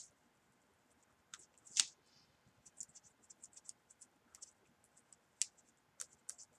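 Pen-like flower-shaping tool with a small rounded nub rubbing over a small paper flower petal: a faint, quick run of scratchy scrapes, with louder strokes about two seconds in and again after five seconds. The rubbing breaks up the paper's fibres so the petal curls and cups.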